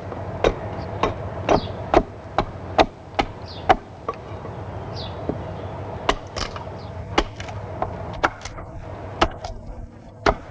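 Hatchet strokes hewing oak ladder rungs: sharp woody chops about two a second for the first four seconds, then after a pause slower, irregular strokes.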